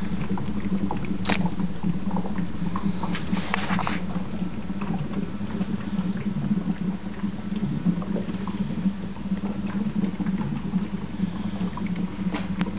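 HHO electrolysis gas bubbling through water in a plastic bottle, with a steady, wavering low hum underneath. A sharp click comes about a second in.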